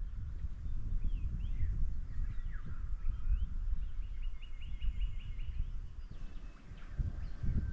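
Wind rumbling on the microphone, with bush birds calling over it: several short whistled calls and a quick run of about eight repeated notes near the middle.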